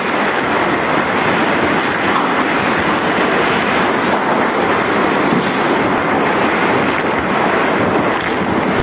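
Hurricane-force wind and driving rain, a loud, steady rushing hiss with no letup.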